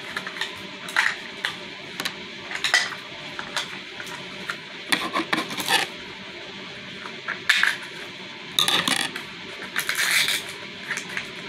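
Hands opening a Mini Brands plastic capsule and unwrapping the small items inside: repeated short bursts of crinkling, rustling packaging with small clicks of hard plastic.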